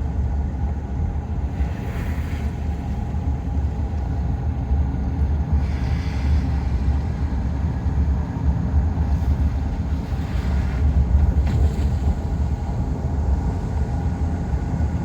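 Steady low rumble of a car driving, heard from inside the cabin: engine and tyre noise, with a few brief swishes.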